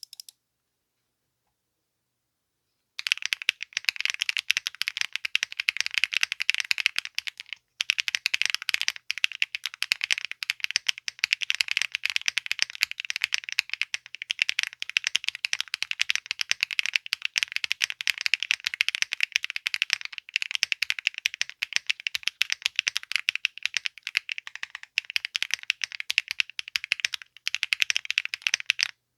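Typing on a 65% mechanical keyboard fitted with BSUN x XXLAB Hepburn v2 linear switches (POM stems, PC top and PA66 bottom housings) and no plate foam: a dense, steady stream of clacky keystrokes. It starts about three seconds in, pauses briefly near the eighth second and stops just before the end.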